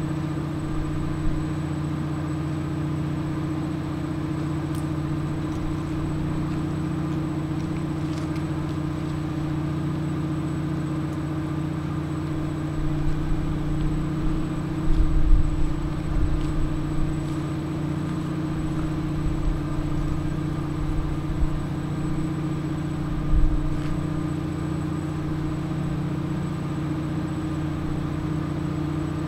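An engine running steadily at idle, a low, even hum, with a few low thumps around the middle.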